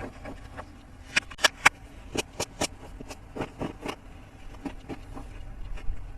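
Small plastic toy playset parts being handled, with a run of sharp clicks and taps. The loudest three come close together about a second in, three more follow near two seconds, and softer taps continue after.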